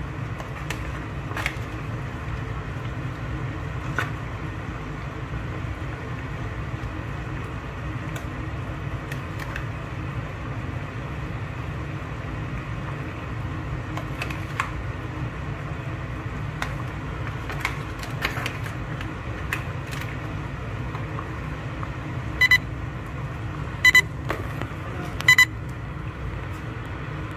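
Mackerel fish-head curry simmering in a wok over a gas burner: a steady low rush with scattered small pops. Near the end come three short electronic beeps, about a second and a half apart.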